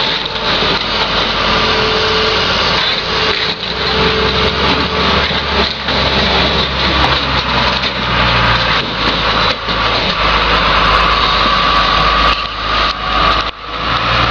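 John Deere 544J wheel loader's diesel engine working hard, its revs rising about eight seconds in, as the forks pull the crushed car stack out of the crusher. A few metal clunks and scrapes sound over it.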